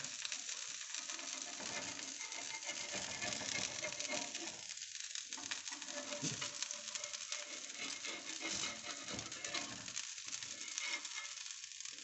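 Dosa batter sizzling on a hot iron tawa: a steady, crackling hiss as the dosa cooks and crisps.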